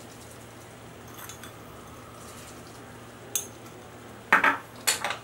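Metal spoon knocking against a steel plate and dishes while sugar and cinnamon are spooned in: a light click about three seconds in, then two louder clinks near the end.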